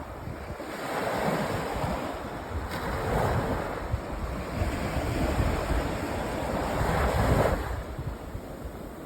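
Sea waves breaking and washing up a sandy beach, three swells of surf in turn, the last about seven seconds in the loudest, with wind buffeting the microphone underneath.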